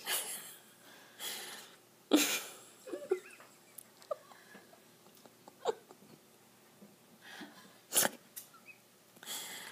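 Short breathy bursts of a person's breath, a second or more apart, with the loudest about two seconds in and a short sharp one about eight seconds in.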